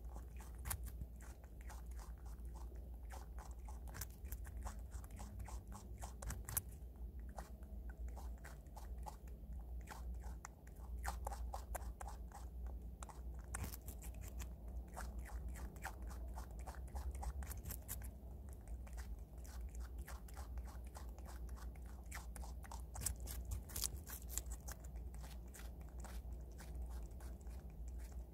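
Prairie dog gnawing and chewing a chunk of raw Korean radish (mu): rapid, crisp crunching bites, several a second, with short pauses between bouts.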